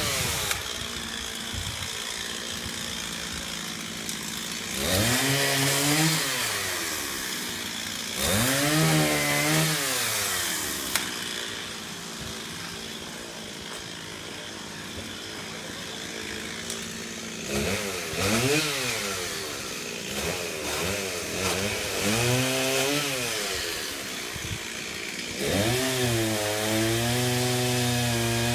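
Chainsaw engine idling and revving up in about five bursts, the pitch climbing sharply and dropping back to idle each time. Near the end it is held steady at high speed.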